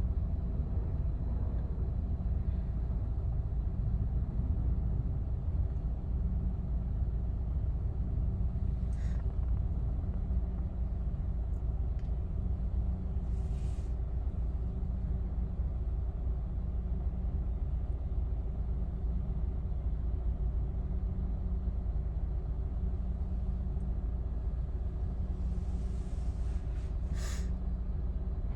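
Steady low rumble of jet aircraft engines, with a faint steady hum running through it and three short hisses.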